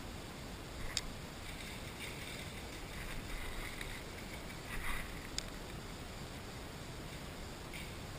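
Steady wind-like rumble on the microphone with some rustling, broken by two sharp clicks about four seconds apart.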